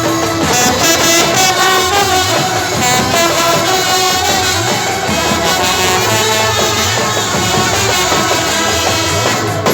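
Brass band playing music, loud and continuous.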